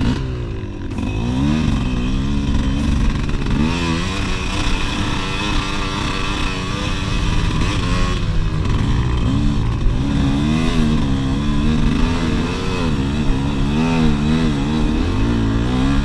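HJX 250cc two-stroke dirt bike engine revving up and down as the throttle is worked while climbing a grassy hill, its pitch rising and falling every second or so.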